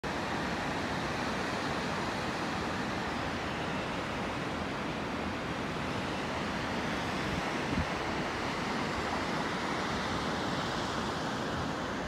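Steady rushing water from a small waterfall and fast river, with wind buffeting the microphone and one brief low bump about two-thirds of the way through.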